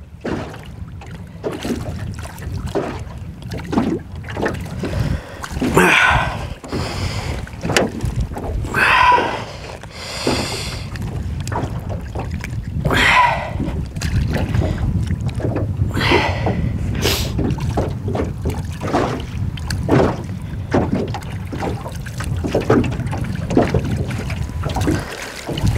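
Small waves slapping and lapping against an aluminium boat's hull, with wind on the microphone. There are repeated small knocks and several louder splashing swells.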